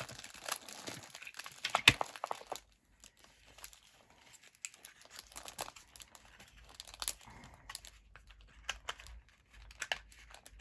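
Packets of craft embellishments being handled and rummaged through, rustling and crinkling in irregular small crackles, busiest in the first couple of seconds with one sharper click, then sparser.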